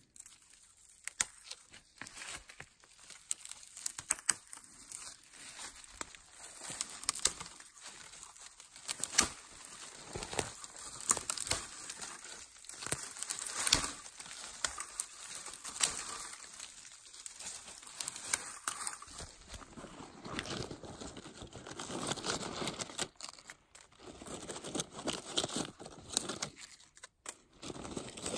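Rustling and crinkling of something being handled close by, with many irregular sharp crackles, densest around the middle.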